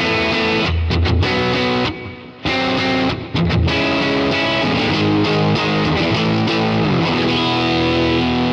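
Semi-hollow electric guitar played through a Kemper Profiler running a '65 Deluxe Reverb profile with the generic gain rolled up: a dirty, overdriven run of ringing chords, with a short break about two seconds in.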